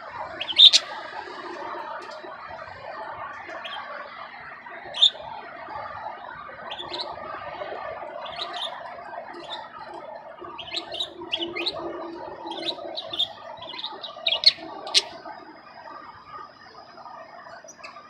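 A pair of budgies chattering in a soft, gargling warble, with short sharp chirps scattered through it that come more often in the second half. It is the begging chatter of a hen budgie asking her mate to feed her. A thin steady high tone starts near the end.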